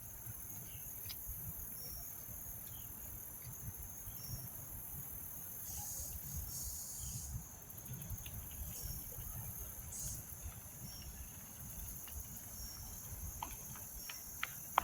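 Insect chorus, crickets, a steady high-pitched trill with a short chirp repeating about once a second, over a low rumble. A few sharp clicks near the end.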